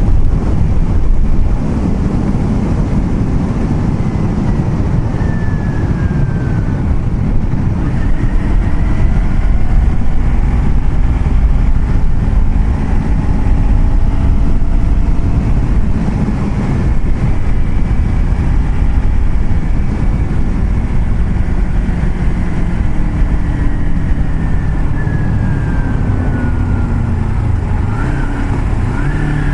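Motor vehicle travelling on a road: a steady low rumble of engine and road noise, with the engine pitch falling briefly a couple of times.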